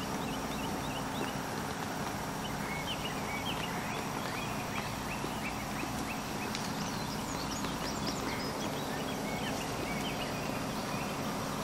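A herd of feral hogs feeding, with many short, high squeals scattered over a steady outdoor hiss.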